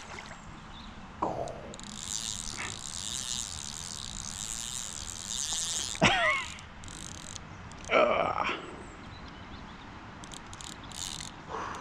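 Fly reel's click-and-pawl drag ratcheting in a fast run for about four seconds as a hooked trout pulls line off it, followed by two short louder sounds about six and eight seconds in.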